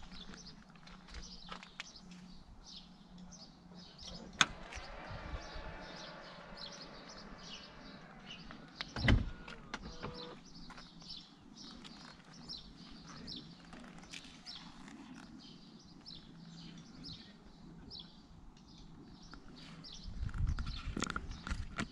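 Jaguar I-Pace's powered tailgate closing: a click, a few seconds of electric motor whir as it lowers, then a thud as it latches, about nine seconds in. Birds chirp throughout, and there is a low rumble near the end.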